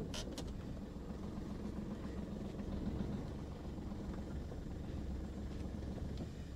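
Chevrolet Beat diesel car running at low speed, heard from inside the cabin as a steady low engine hum and rumble. Two light clicks sound just as it begins.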